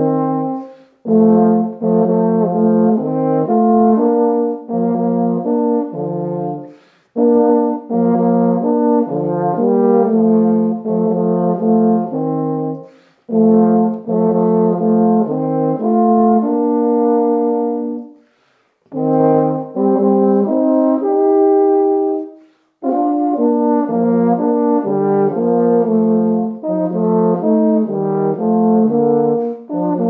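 Two tenor horns playing a duet in harmony, in phrases broken by short breathing gaps about five times.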